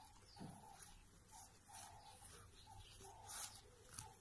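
Near silence with faint, short, irregular rustles from a Labrador retriever puppy nosing in the grass.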